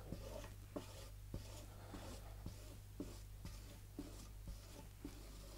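Faint swishing of a cloth French-polishing rubber, damp with methylated spirit, wiped in quick straight strokes over a shellac-finished tabletop during spiriting off. There are about two strokes a second, each with a soft knock as the pad lands, over a low steady hum.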